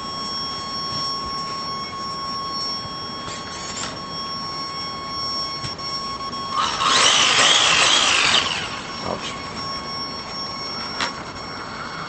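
Brushed electric motor of a 1/12 scale RC car whining high and steady while powered, as the wheels roll from a throttle trim set a little high. About seven seconds in, the motor revs loudly for about two seconds, then drops back to the whine, with a sharp click near the end.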